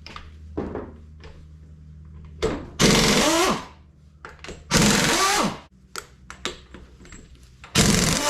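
A power impact wrench spinning out Ford 460 cylinder head bolts in three short runs, each under a second, its pitch sliding as the bolt turns.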